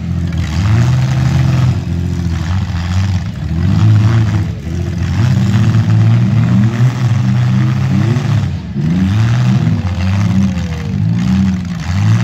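Engines of several modified compact demolition-derby cars revving and idling at once, their pitches rising and falling in overlapping waves.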